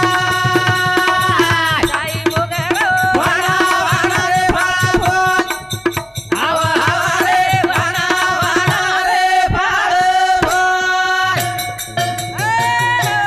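Banjara devotional bhajan: singing with long held notes, accompanied by a dholak barrel drum and small hand cymbals keeping a steady beat. The music dips briefly about halfway through.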